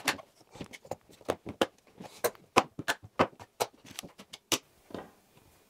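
Irregular light knocks, taps and clatter of objects being lifted and set down on a wooden desk as it is cleared, a laptop among them; they stop about a second before the end.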